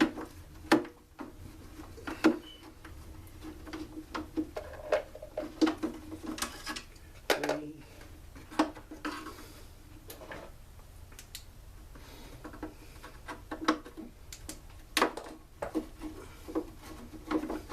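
Hand tools and metal parts clicking and clinking as the bolts holding a backpack blower's plastic back cover are undone and set down, in sharp irregular knocks.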